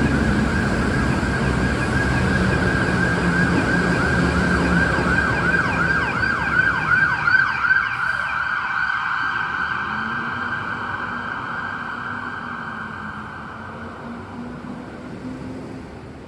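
Emergency vehicle siren sounding a steady wail that breaks into a fast warble about five seconds in. A low rumble under it dies away about halfway, and the whole sound fades steadily as the siren passes into the distance.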